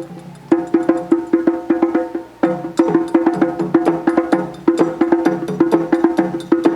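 Live percussion music: fast, rhythmic strikes on pitched percussion with a woody, knocking tone. It starts in earnest about half a second in, drops back briefly around two seconds in, then picks up again.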